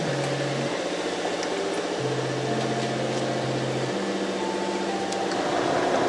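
A fishing boat's engine runs with a steady hum and rush. A slow line of soft, held low notes, stepping from one pitch to the next every second or two, sits over it.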